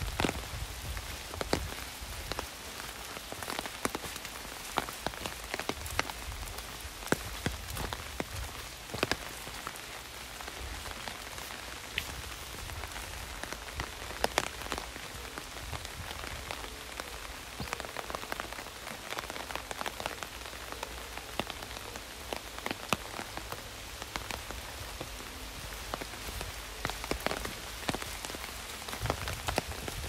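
Heavy rain falling steadily, with individual drops hitting an umbrella overhead as frequent, irregular sharp taps.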